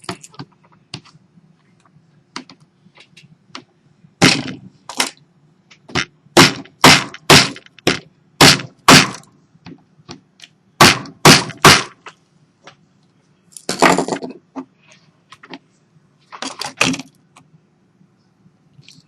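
A run of about fifteen sharp cracks and snaps, loudest and closest together in the middle, from parts of a dead Samsung Galaxy S3 being pried and broken apart.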